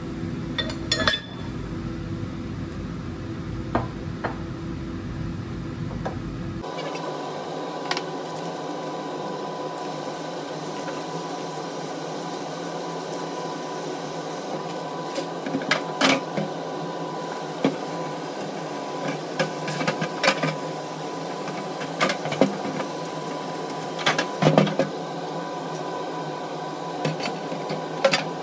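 Kitchen clatter: scattered clinks and knocks of pots, dishes and utensils being handled, over a steady background hum. The background changes abruptly a few seconds in.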